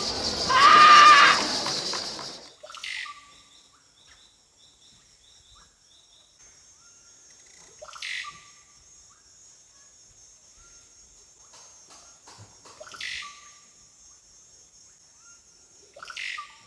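Music fades out in the first two seconds, leaving tropical forest ambience: a steady high insect drone, with a bird call repeated four times about every five seconds, each a short rasp followed by a brief whistle.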